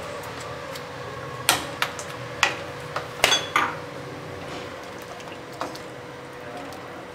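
Utensils knocking against a non-stick cooking pot as rabri is scraped in from a plastic tub and stirred into milk with a silicone spatula: about six sharp knocks in the first half, a few softer ones later, over a faint steady hum.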